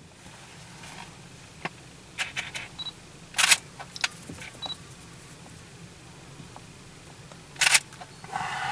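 Handling noise from a handheld video camera inside a car: scattered sharp clicks and knocks, the loudest about three and a half seconds in and again near the end, with two short high beeps between them.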